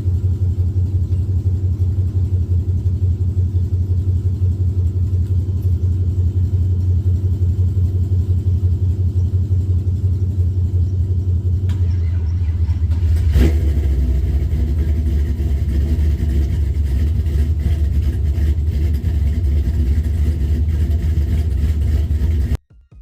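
LS V8 engine in a swapped Chevy truck running with a steady, low, pulsing rumble. About thirteen seconds in there is a short knock and the engine sound turns fuller. It cuts off suddenly just before the end.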